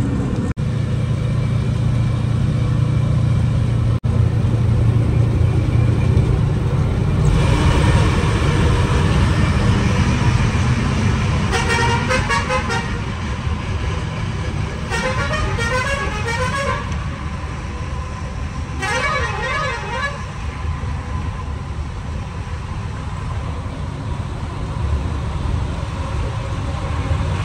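A truck's diesel engine running steadily on the move. Near the middle a vehicle horn sounds three times, a second or two each, with a pitch that goes up and down.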